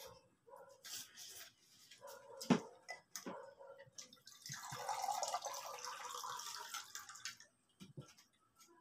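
Clinks and knocks of spoons and dishes at a meal table, one sharper knock about two and a half seconds in, then about three seconds of water pouring near the middle.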